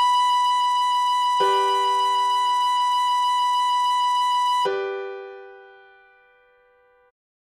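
A tin whistle holds one long high B over a piano G major chord, and the chord is struck again about a second and a half in. Near five seconds the whistle stops and a last piano chord is struck and slowly fades away.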